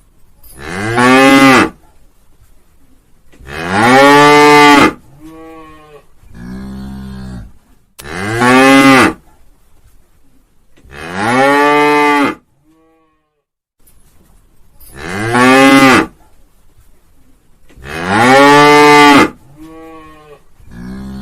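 Cattle mooing over and over: six loud moos, each a second or so long and rising then falling in pitch, with quieter, lower moos in between.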